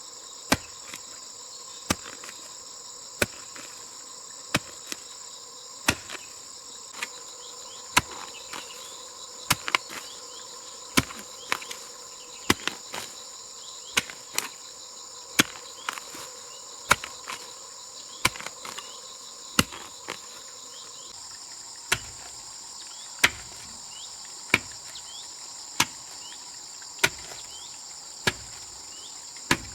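Sharp hammer blows landing evenly about every second and a quarter, with one short pause about two-thirds of the way through. Under them, crickets chirr steadily.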